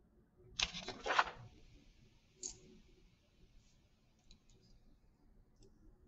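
A brief rustle of handling noise about half a second in, then a sharper click and a few faint clicks, as of a computer mouse being used.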